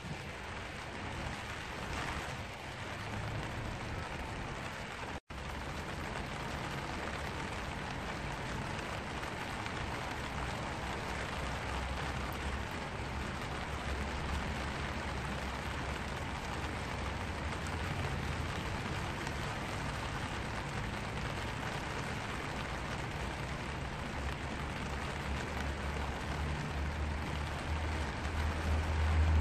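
Steady rain pattering on a black vinyl umbrella canopy, an even hiss of many drops. A low rumble runs underneath and grows stronger near the end, and the sound cuts out for an instant about five seconds in.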